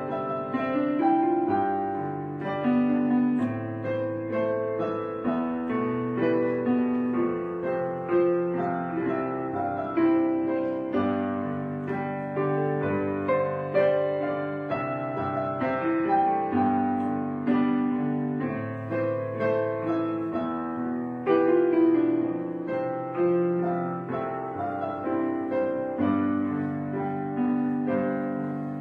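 Background piano music, a run of sustained notes and chords.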